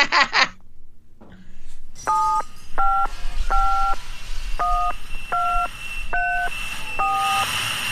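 Touch-tone telephone keypad being dialled: seven short two-tone beeps, one key press about every half second to a second. A hiss and a faint steady high tone sit under the beeps from about two seconds in.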